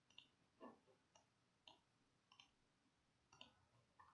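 Faint computer mouse clicks, about half a dozen short single clicks spaced irregularly, against near silence.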